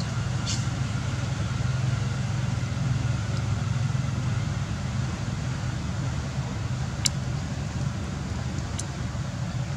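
Steady low rumbling background noise, with a few short faint clicks; the sharpest click comes about seven seconds in.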